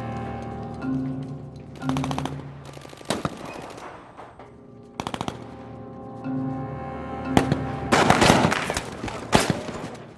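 Several short bursts of machine-gun fire and single gunshots, heaviest about eight seconds in, over film-score music with long held low notes.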